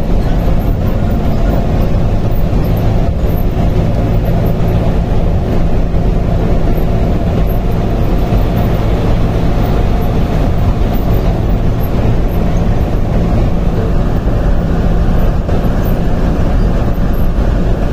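Bus engine and road noise heard from inside the driver's cab while cruising at highway speed: a loud, steady drone with a low engine hum running under it.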